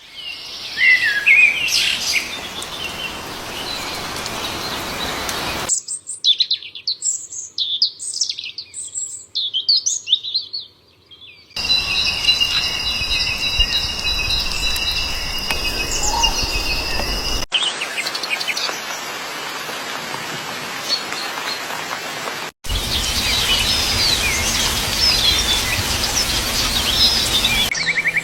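Several short field recordings of wild birds spliced one after another, each ending in an abrupt cut: quick chirps and calls over outdoor background noise, with one segment carrying steady high tones.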